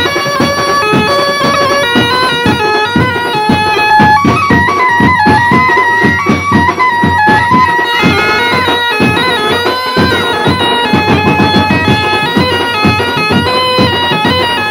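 Background music: a melody in held, stepping notes over fast, steady percussion.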